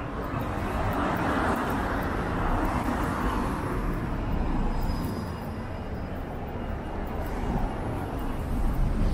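Street traffic: a road vehicle passes close by, its engine and tyre noise swelling over the first couple of seconds and fading by about six seconds in, over a steady traffic rumble.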